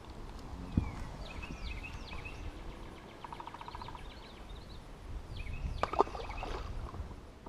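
Birds calling: short swooping whistled chirps, and near the middle a quick even trill, over a low wind rumble. Two sharp knocks come through, about a second in and near six seconds in, the second being the loudest.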